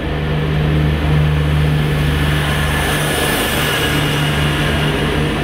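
TCDD train MT 15401 going past, its engine running with a steady low drone under loud rolling noise, a brighter hiss swelling about halfway through.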